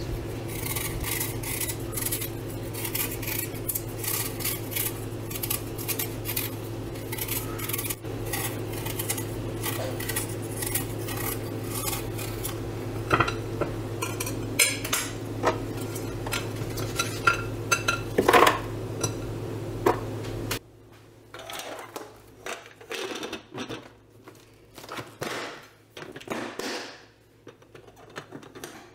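Apple being peeled with a knife close up: a dense run of crisp slicing and crunching of the peel over a steady low hum, for about twenty seconds. Then the hum stops suddenly and sparser knocks and rustles follow as the peels are handled around a plastic food container.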